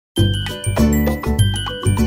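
Music starting abruptly a fraction of a second in: a pulsing bass beat under bright, chiming notes.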